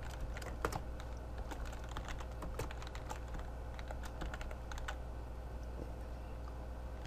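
Computer keyboard being typed on: irregular key clicks, several a second, thinning out near the end, over a steady low hum.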